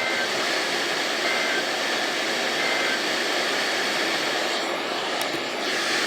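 Emergency Alert System end-of-message data signal: three short two-tone digital bursts about 1.3 seconds apart, closing the tornado warning. They sound over a steady hiss of broadcast static.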